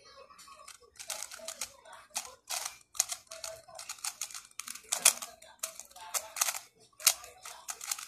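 GAN 354 M magnetic 3x3 speedcube being turned fast by hand during a speed-solve: bursts of rapid plastic clicking and clacking as the layers turn, with a single sharper click about seven seconds in.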